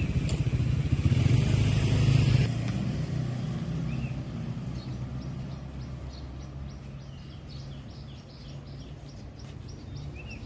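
A motor vehicle engine running close by, loudest for the first two seconds and then fading away as it moves off. Short high bird chirps come in from about halfway through.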